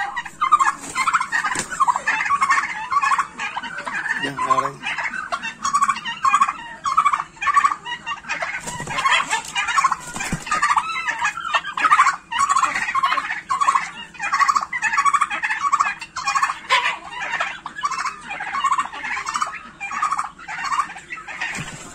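Domestic turkeys gobbling over and over, short rattling calls coming about every half second.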